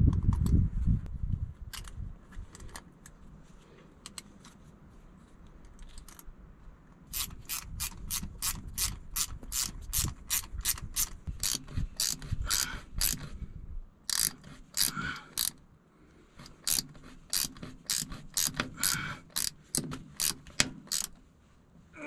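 Ratcheting wrench clicking as a hydraulic hose fitting on a dozer winch's hydraulic pump is turned: runs of sharp clicks, about three a second, in several bursts with short pauses, starting about seven seconds in.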